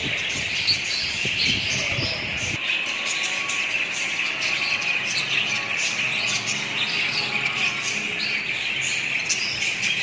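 A flock of budgerigars chattering continuously, a dense mass of overlapping chirps and warbles from many birds at once.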